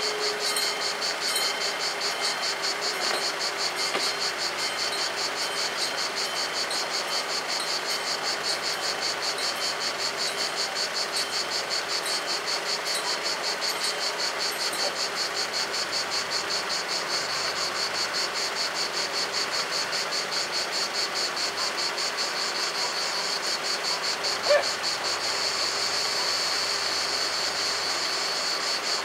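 Italian level-crossing warning bells ringing rapidly and evenly, several strokes a second, while the barriers are down. A single short sharper sound stands out about three-quarters of the way through.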